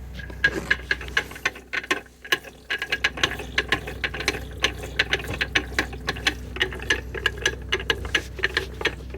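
M46 manual gearbox turned over by hand in second gear, its gears and shafts clicking as they spin. The clicks are irregular at first, then settle into an even run of about four or five a second.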